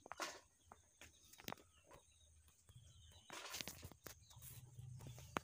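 Near silence: faint background noise with a few soft clicks and short rustles, the sharpest click near the end.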